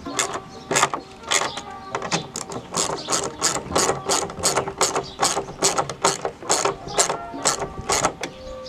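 Hand ratchet clicking in quick, even strokes, about three clicks a second, as it runs down the bolts of a cup/rod holder bracket.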